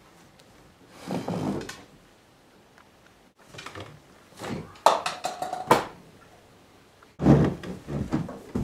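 Wooden furniture handling: a chair knocked and scraped across the floor at a table, with a shuffle about a second in, a cluster of sharp knocks midway and a heavy thump near the end.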